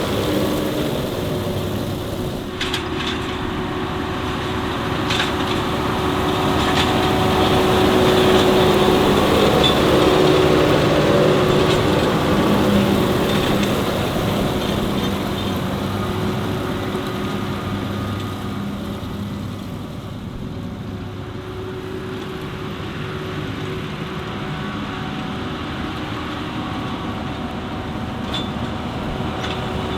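New Holland T7 tractor engine running steadily while baling, with a few sharp clicks over it.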